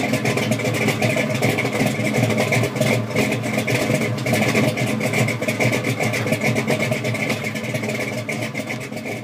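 Car engine running steadily, fading out near the end.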